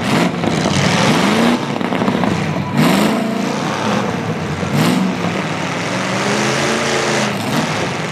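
Demolition derby truck engines revving hard, the pitch climbing and dropping several times over a loud running din, with two sharp knocks about two seconds apart.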